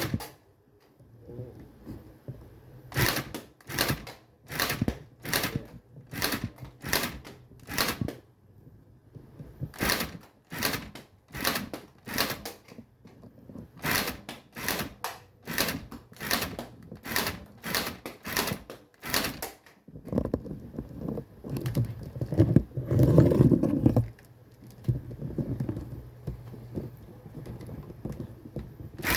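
Toy M416 gun firing single shots, each a sharp click, about one to two a second, broken by a louder stretch of rattling noise about three-quarters through.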